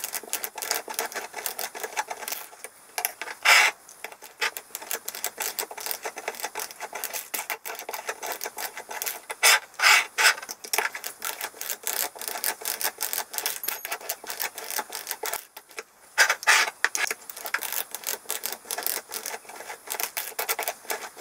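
Hand-cranked canning seamer rolling tin lids shut onto glass jars: a rapid, continuous scraping and clicking as the roller is worked round each lid, with a few louder clunks along the way.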